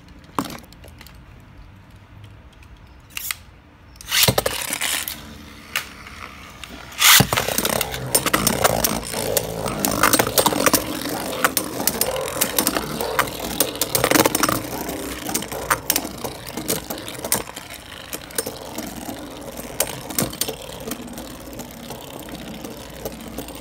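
Two Beyblade Burst spinning tops, Mirage Fafnir and Brave Valkyrie, spinning and colliding in a plastic stadium: a continuous rattling scrape with frequent sharp clicks, starting after a loud burst about seven seconds in. Before that it is quieter, with a few knocks.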